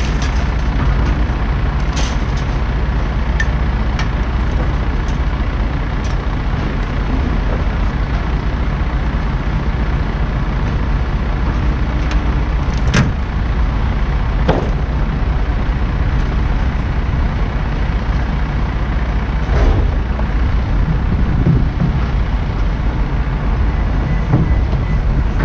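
Steady low engine rumble, with a few sharp metallic clanks as scrap is pulled out of a pickup bed and dropped.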